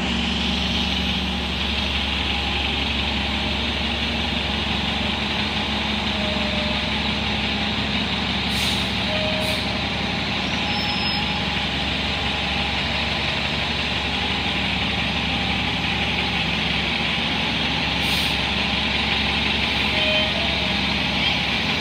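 NJ Transit city bus's diesel engine idling steadily at a bay, a constant low drone with a fan-like hiss over it. A few short bursts of air hiss come through, about eight and nine seconds in and again about eighteen seconds in.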